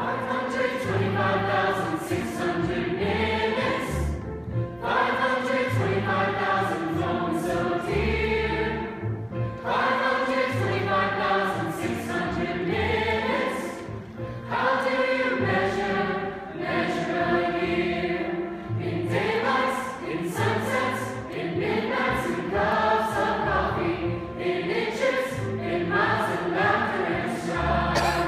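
Mixed youth choir singing in phrases with orchestral accompaniment, steady low notes sounding beneath the voices.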